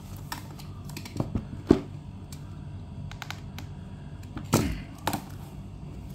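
Scattered light clicks and knocks of a coin presentation box and its packaging being handled and opened, with a few sharper knocks a little under two seconds in and again around four and a half to five seconds in, over a low steady hum.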